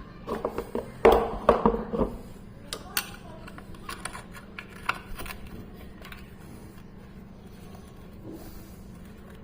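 Metal clinks, knocks and scrapes of an Allen key working the clutch-cover screws of a motorcycle engine. The clatter is busiest in the first two seconds, with a few sharp ticks after it, then it dies down.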